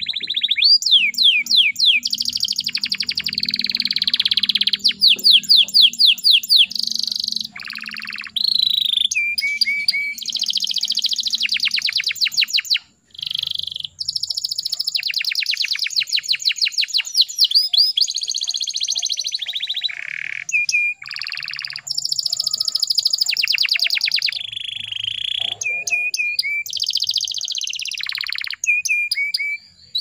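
Domestic canary singing a long, nearly unbroken song of fast trills and rolls, broken by short pauses about 13 seconds in and just before the end.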